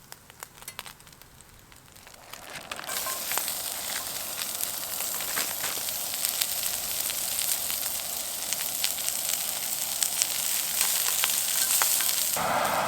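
Food sizzling and frying in a hot pan, setting in about two and a half seconds in and carrying on steadily, full of fine crackles and pops. Just before the end a louder, different steady sound cuts in.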